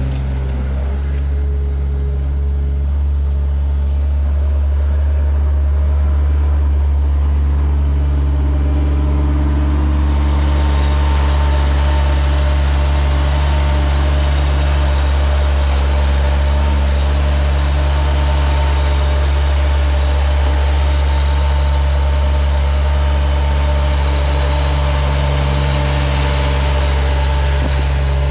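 New Holland LS140 skid steer's diesel engine running steadily, heard close up; from about ten seconds in it grows a little louder, with more hiss on top.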